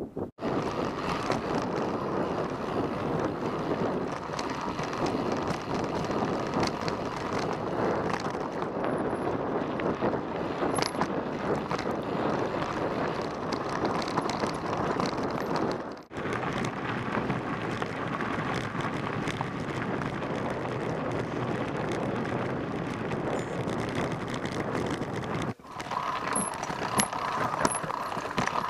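Mountain bike riding over a rocky trail, heard through an action camera on a following rider: a steady rattle and rumble of the ride with wind on the microphone. The sound drops out briefly twice.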